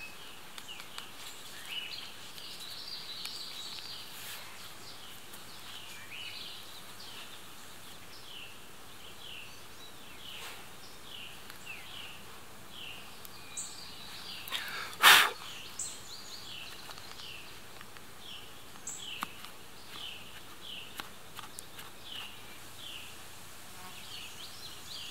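Woodland ambience: a short descending chirp repeats about once a second over a faint steady hiss. One sharp click comes about halfway through.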